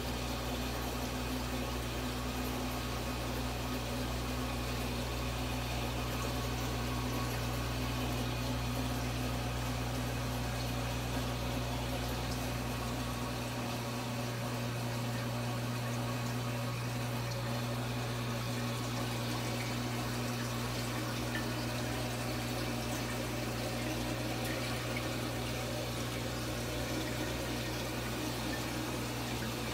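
Water running steadily through a garden-type hose into a large aquarium during a water change, over a steady low hum; the deepest part of the hum drops away about halfway through.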